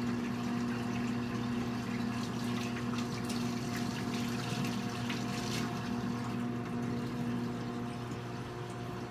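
Kitchen tap running into the sink as hands are washed, stopping about two-thirds of the way through. Under it, a steady low hum from a microwave oven heating the sauce.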